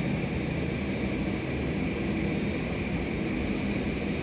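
Steady, even airport background noise: a constant low rumble with hiss over it and no distinct events.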